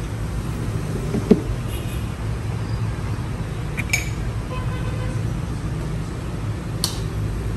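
Steady low rumble of street traffic, motorbikes and cars, with a few faint clicks as a camera lens is twisted off a mirrorless body and another is mounted.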